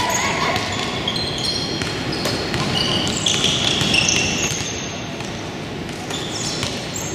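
Basketball game on a gym court: sneakers squeak in many short, high bursts as players cut and stop, and the ball bounces, over a steady background din from the gym.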